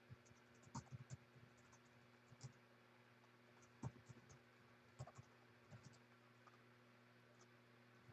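Faint, irregular clicks and light scratching at a desk as names are entered, a dozen or so scattered ticks.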